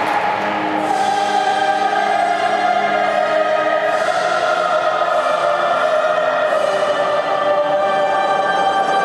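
Choral music with long, sustained notes.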